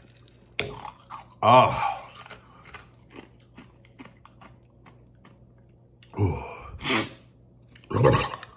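A man's loud, voiced exhales and groans as his mouth burns from very hot sauce: one about a second and a half in, then a few more near the end, with faint small clicks between them.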